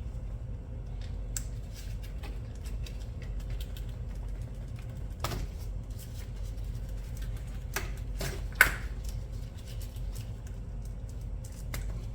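Scattered clicks and light knocks of hand work on the purge valve and its hose connections in the engine bay, with one sharper click about two-thirds of the way through, over a steady low hum.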